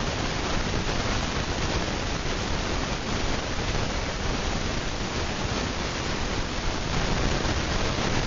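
Steady rushing air noise from a Hunter Low Profile ceiling fan spinning at speed, with no separate motor hum or ticking.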